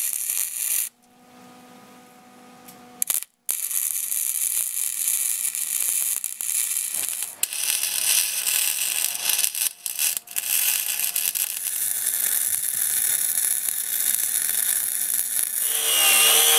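Welding arc crackling and hissing in spurts on the mower deck's steel, stopping and restarting a few times. Near the end an angle grinder with a cut-off disc spins up with a rising whine and cuts into the deck's sheet-metal bracket.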